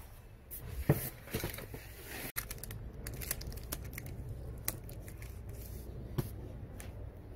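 Handling noises of a foam yoga mat and clear tape: scattered clicks and rustles, with crackly strokes of tape being pulled and snipped with scissors around the middle.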